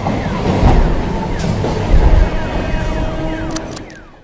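Kolkata suburban electric local train (EMU) passing close on the track: a loud rumble and rail clatter that swells twice and fades away near the end.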